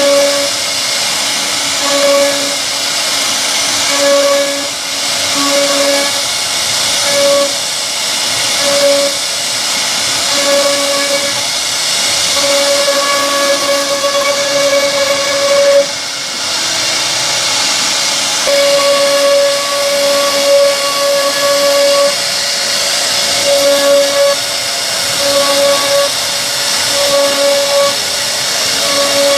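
CNC wood router carving solid wood: a steady, hissing cutting noise with the spindle's pitched whine that keeps breaking off and coming back every second or two.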